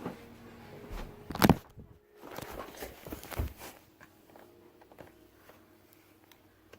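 Hands handling a plastic action figure and its parts: a few sharp clicks and knocks, the loudest about one and a half seconds in, with a stretch of rustling and small clicks after it.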